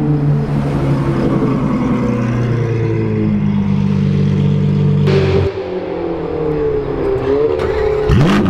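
Supercar engine and exhaust on the street: it runs steadily at low revs, then gives a sharp burst of revs about five seconds in. After that the note slides down, and there is a quick swoop down and back up in pitch near the end.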